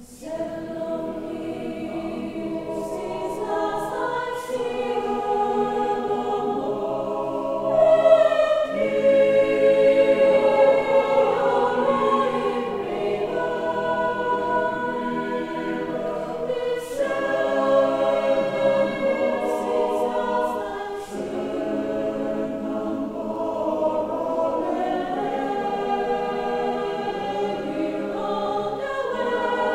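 Mixed choir of women's and men's voices singing in several parts, entering together suddenly out of quiet and swelling louder about eight seconds in.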